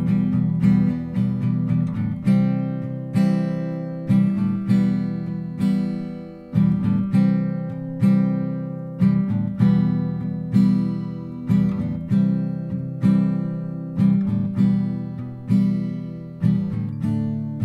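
Acoustic guitar strumming slow chords in a song's instrumental passage, about one strum a second, each chord ringing out and fading before the next.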